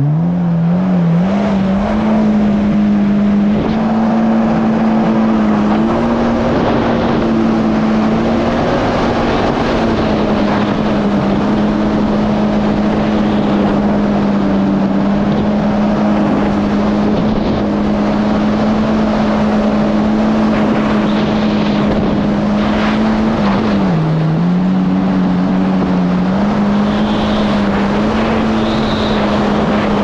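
Yamaha GP1800R SVHO jet ski's supercharged four-cylinder engine running at steady throttle under way, over a steady rush of wind and water. The engine note dips briefly about 24 seconds in and comes back up.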